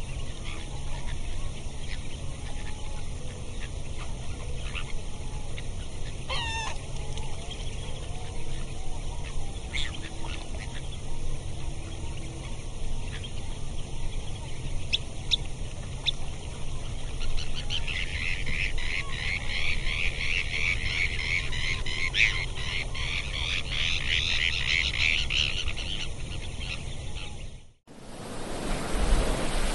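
Outdoor ambience: a steady low rumble with a few short chirps, and from about 18 seconds in a dense, high chattering chorus of animal calls lasting around eight seconds. Near the end it cuts abruptly to a different recording of waves and wind.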